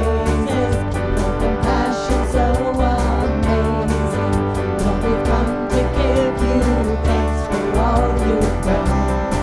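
Worship band playing a song: singing over guitar and bass, with a steady beat.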